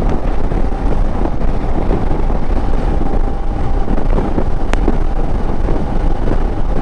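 Wind rushing over the microphone of a Royal Enfield Himalayan rider at highway speed, mixed with engine and road noise and a faint steady hum. One sharp click about two-thirds of the way through.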